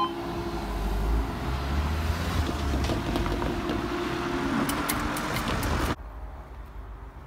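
Road traffic moving over the level crossing once the barriers are up: cars and heavier vehicles passing with a steady rumble and a faint engine hum. The sound drops to a quiet background about six seconds in.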